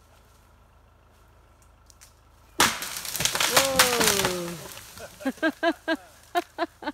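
Wood suddenly cracking and splintering about two and a half seconds in, a loud crackle with a falling creak lasting about two seconds as timber breaks under strain. It is followed by several short cries.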